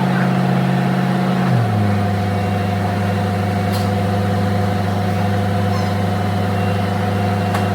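Engine of a heavy vehicle running at idle, a steady hum whose pitch settles lower about a second and a half in.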